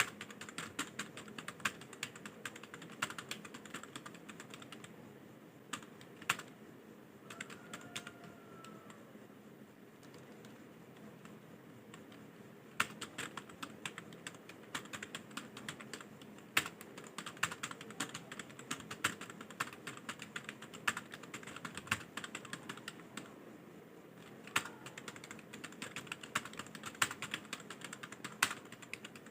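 Fast typing on a computer keyboard: rapid runs of key clicks, broken by a few pauses of about two seconds.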